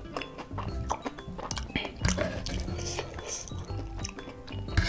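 A few clinks and knocks of a metal fork against a wooden serving board, over background music.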